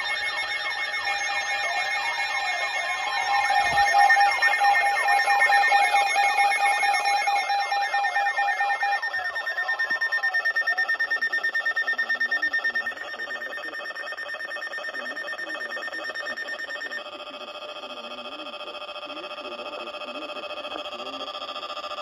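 Several NOAA weather alert radios sounding their alarms at once for a Special Marine Warning: overlapping warbling and beeping tones. Some of the tones drop out about nine and thirteen seconds in, and around seventeen seconds the mix changes to a different set of pulsing tones.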